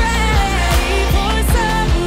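Pop song playing, with a sung vocal over a steady beat.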